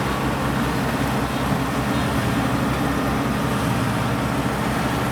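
Kubota rice combine harvester's diesel engine running steadily, with an even low throb.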